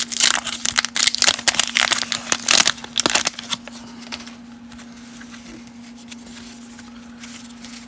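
Waxed-paper wrapper of a 1989 Fleer wax pack being torn open and crinkled by hand: a fast run of crackles for about the first three seconds. After that, only faint handling noises as the cards come out.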